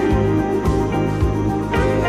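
Instrumental background music with sustained chords and a steady beat of about two strokes a second.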